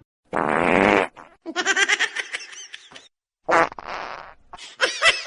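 Two short, raspy fart-like blasts, one near the start and one past the middle, with quick pulsed sounds like laughing between and after them.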